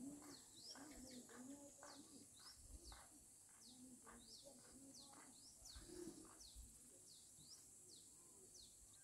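Faint small birds chirping over and over in quick rising and falling notes, over a steady high insect drone.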